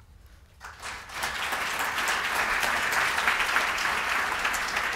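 Lecture-hall audience applauding at the end of a talk, rising within the first second to steady clapping.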